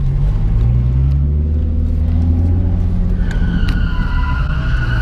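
Nissan 350Z's V6 engine running at low revs as the car rolls slowly, heard from inside the cabin, its pitch rising a little about a second in. A steady high tone joins about three seconds in.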